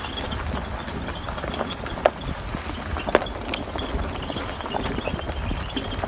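2017 Chevrolet Colorado Z71 rolling slowly over a dirt track strewn with leaves and twigs: low tyre and driveline rumble, irregular sharp cracks of twigs and debris under the tyres (loudest about two and three seconds in), and short, repeated high squeaks from the rear of the truck. The rear squeak persists even after the leaf-spring TSB repair.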